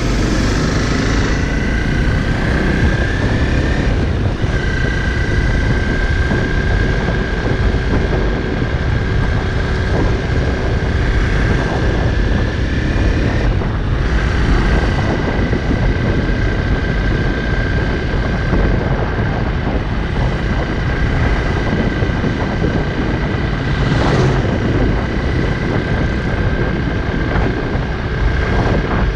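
Honda CRF250L's single-cylinder four-stroke engine running at a steady cruising speed, with heavy wind rush on the microphone.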